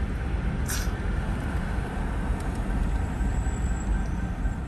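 Steady low rumble of a motor vehicle and road noise, with a short hiss a little under a second in.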